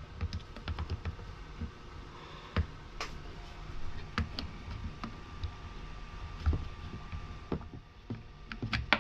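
Small parts of a battery mini chainsaw being handled and fitted together: scattered light clicks and taps, with a few louder knocks, the last ones just before the end.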